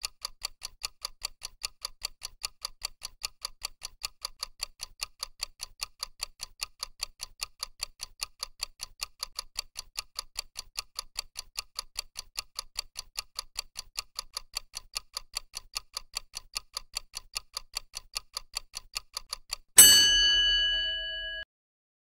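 Countdown-timer clock-ticking sound effect: an even, steady tick counting off the seconds. Near the end, as the timer reaches zero, a loud ringing tone starts suddenly and fades for about a second and a half before cutting off.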